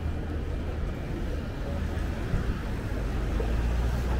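Road traffic: a low, steady engine rumble that gets a little louder near the end.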